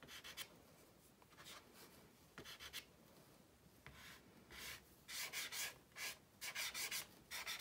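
Dry pastel stick scratching across rough toned paper in short fur strokes: a few scattered strokes, then from about five seconds in a quick run of strokes at about four a second.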